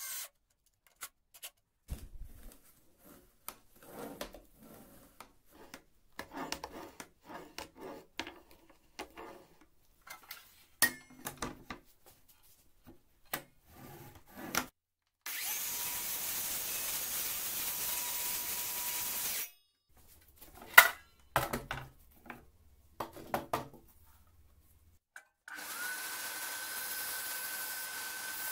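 Scattered clicks, taps and scrapes of a hand tool on screws and wood, then a Greenworks cordless circular saw runs for about four seconds with a faint whine. A few sharp knocks follow, and a belt sander starts up near the end and runs steadily.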